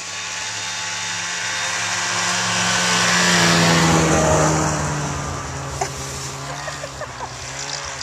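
Snowmobile engine running as it passes close by, growing louder to a peak about four seconds in, then fading with its pitch dropping as it moves away.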